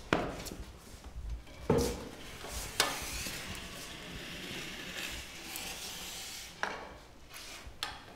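A wheelchair being pushed across a floor amid people moving: a handful of sharp knocks and clicks with a soft rustling, rolling hiss between them.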